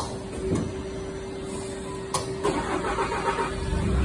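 Smart NL 2000M CNC lathe running a cycle: a steady machine whine with a sharp click at the start and another about 2 s in. The whine then slides down and stops, and a louder, rougher machine noise builds toward the end.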